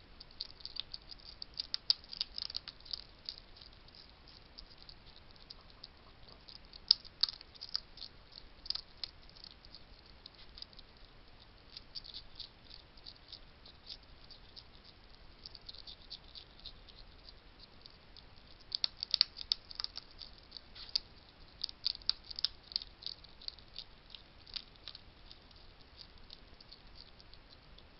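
Wild hedgehogs crunching dry food at a feeding station: a long run of quick, sharp clicks and crackles that comes in several busy flurries between quieter spells.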